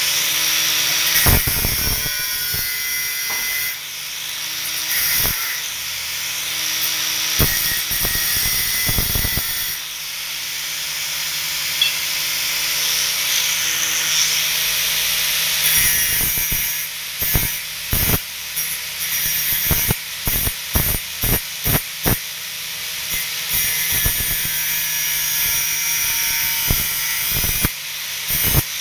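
Electric angle grinder running at full speed with a steady high whine, its disc touched against a small block on the floor, giving many short sharp scrapes, most of them in quick succession in the middle of the stretch.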